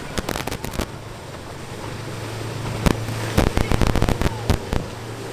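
Motorboat engine running with a steady low hum that grows louder, broken by clusters of sharp cracks and pops near the start and again about three to five seconds in.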